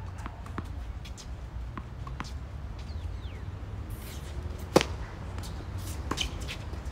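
A tennis ball is bounced a few times on a hard court, then struck hard with a racket on the serve almost five seconds in, a single sharp pop. A fainter ball strike follows about a second and a half later, over a low steady background rumble.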